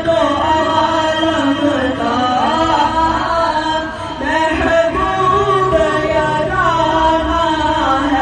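A young male voice chanting a naat, an Urdu devotional poem in praise of the Prophet, solo in long held melodic lines that slide and bend between notes.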